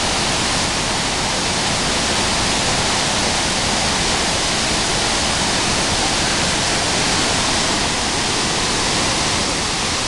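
Large waterfall in heavy flow: a steady, loud rush of falling water.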